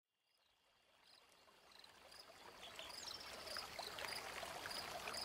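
Recorded running stream fading in from silence, with high chirps repeating about twice a second over the water: the nature-sound opening of a new-age flute track.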